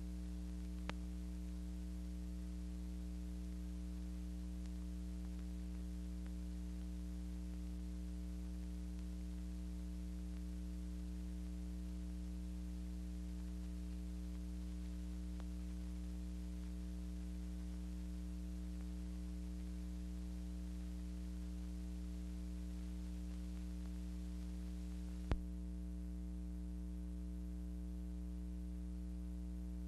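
Steady low electrical hum with a hiss, with no speech or music. There is a small click about a second in and a sharper click about twenty-five seconds in, after which the hiss turns quieter.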